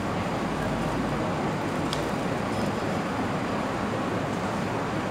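Road traffic noise: a steady wash of cars driving through a city street junction.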